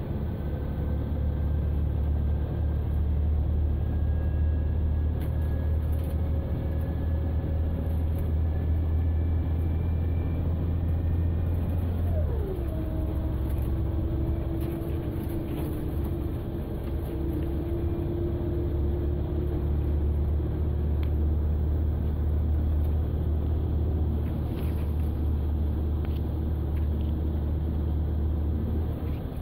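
Scania L94IB bus's DC9 diesel engine and ZF Ecomat 5HP600 automatic gearbox, heard from inside the cabin under way: a whine climbing slowly over the engine's low drone, dropping sharply in pitch about twelve seconds in as the gearbox shifts up, then holding steady.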